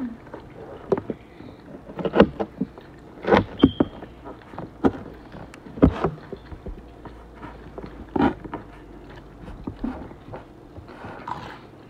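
Close-up eating sounds: chewing and mouth noises, broken by several sharp clicks of a metal fork.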